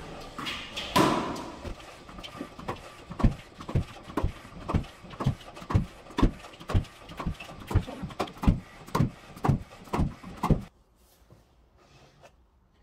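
Background music with a steady thumping beat, about two beats a second, that cuts off suddenly late on.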